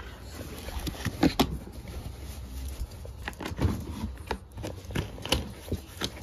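Puppy potty pads being handled and laid into a plastic drawer bin: a string of short scattered rustles, clicks and light knocks.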